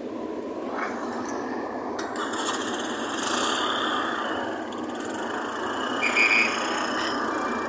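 Diesel engine of a Hyundai backhoe loader running steadily while its boom holds up a heavy concrete cross, with a short high-pitched tone about six seconds in.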